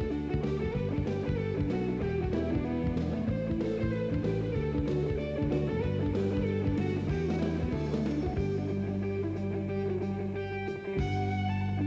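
Background music led by guitar, with a steady plucked rhythm.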